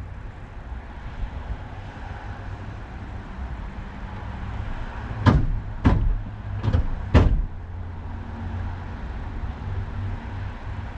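A car engine idling steadily, with four sharp thumps in quick succession around the middle.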